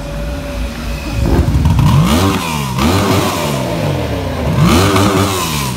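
Holden V8 engine revved hard in four or so quick blips, each rising in pitch and dropping back to idle.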